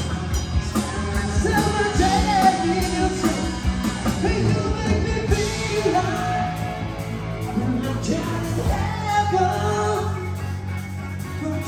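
Live rock band playing, with a lead singer's voice over guitars and drums.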